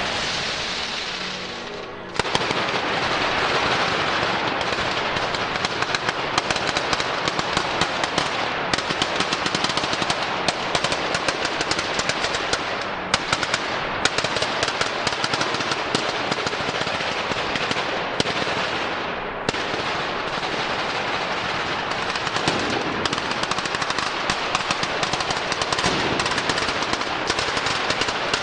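Firecrackers loaded on the ceremonial cart going off in a dense, unbroken rapid-fire crackle that starts about two seconds in, after a fading hiss.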